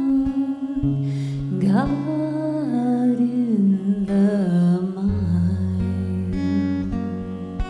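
Devotional song: a single voice drawing out a slow melody, sliding between long held notes, over a plucked-string accompaniment with sustained low notes that change twice.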